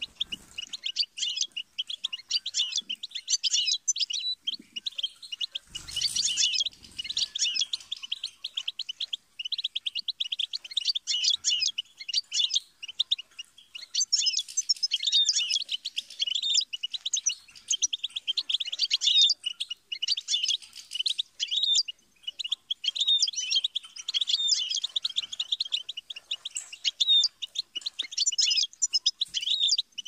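European goldfinch singing: a long, nearly unbroken run of fast twittering, tinkling phrases and trills, with a few short pauses.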